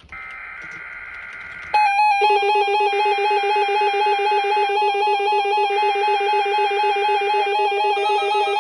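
NOAA Weather Radio weekly test alert signal: a steady electronic tone, then about two seconds in a much louder mix of steady and rapidly switching electronic tones that keeps going.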